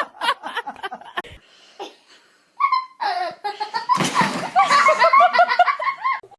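Hearty human laughter in quick repeated bursts. It breaks off about a second in and starts again for the second half.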